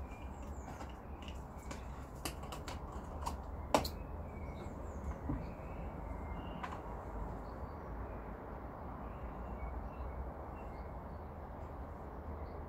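A plastic bottle of methylated spirit being handled: a few sharp clicks in the first four seconds as the cap comes off, the loudest near four seconds, then the spirit poured into a small plastic container over a low rumble. Faint bird chirps are heard in the background.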